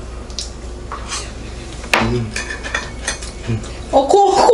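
Cutlery clinking and scraping against bowls and dishes at a meal, with scattered light clicks and one sharp clink about two seconds in. Near the end a louder melodic sound with held notes comes in.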